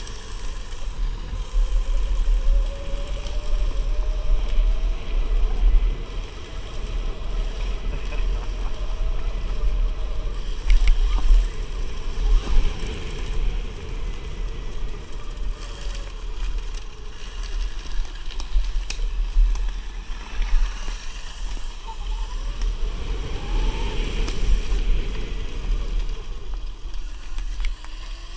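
Electric dirt bike riding a dirt trail: a faint motor whine that rises and falls with speed, climbing sharply about two-thirds of the way through, over a heavy rumble of wind and vibration on a bike-mounted action camera. A few sharp knocks from bumps come about a third of the way in.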